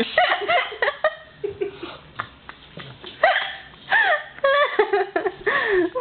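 A toddler's high-pitched babbling and squeals, short rising and falling calls, with a few sharp knocks.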